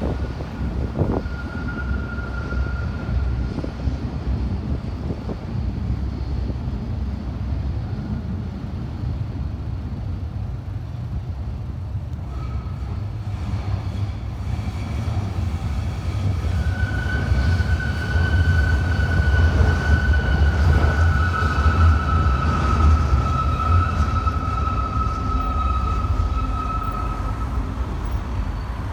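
A train running past: a steady low rumble that grows louder about two-thirds of the way through, with a high steady whine over it in the second half.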